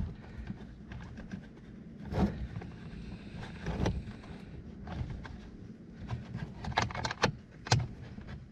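Irregular light clicks and knocks of a socket tool and fingers against the plastic and metal under a dashboard as a small screw is worked into place, with a cluster of sharper clicks near the end, over a low steady hum.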